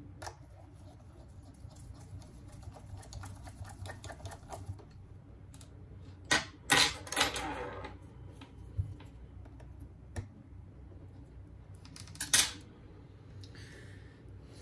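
Small metal hand tools clicking and scraping against a smartphone's parts during a repair. There is a run of light clicks first, then louder clattering knocks about six seconds in and again near the end.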